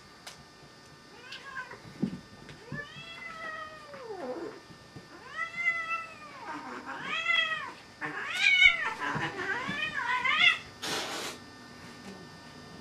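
A domestic cat meowing repeatedly while play-fighting with puppies: about six drawn-out, arching meows that grow louder toward the end, followed by a short burst of hiss-like noise.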